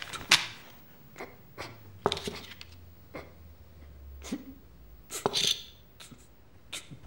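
Foley of a paper banknote and coins handled on a small metal tray on a table: a string of short clicks and knocks, the sharpest just after the start, with a paper rustle about five seconds in.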